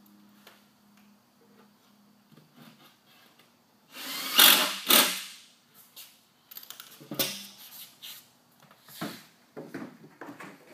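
Cordless drill running faintly as it drives a screw into a wooden box, then two loud scrapes about four seconds in, followed by a series of wooden knocks and scrapes as the box is handled and stacked.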